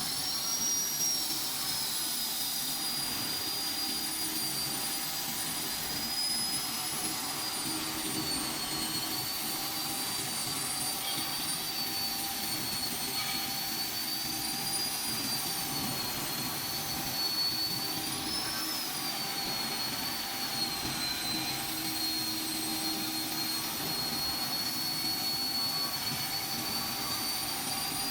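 High-speed grinder at work on a lathe: a steady high-pitched motor whine over a constant grinding hiss, the pitch wavering slightly as the load changes.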